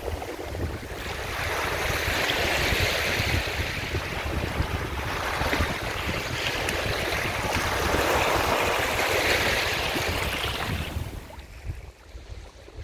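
Small waves washing up a sand beach: two long swells of rushing surf, with wind rumbling on the microphone underneath. The surf noise falls away near the end.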